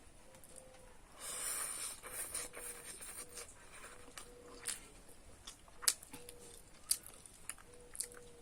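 A person eating noodles: a hissing slurp about a second in, then quieter chewing broken by a few sharp clicks.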